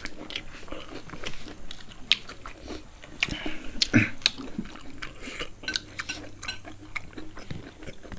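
Close-miked chewing and mouth smacking of roasted pig head meat, with irregular short sharp clicks.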